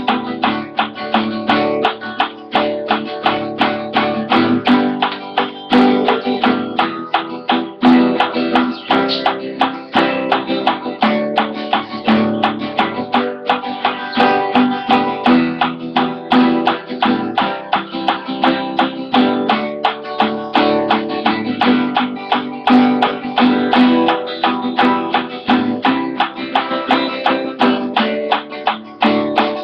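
Acoustic guitar strummed with a pick in a steady, continuous rhythm, many strokes a second, the chords changing every few seconds.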